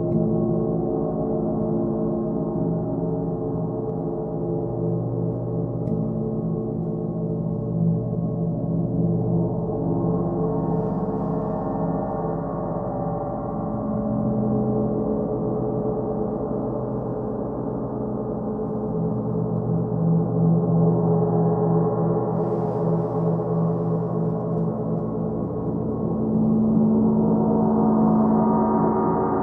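Large hanging gongs, one of them a Paiste, played with soft felt-headed mallets: a continuous wash of many overlapping sustained tones that swells and ebbs, growing louder near the end.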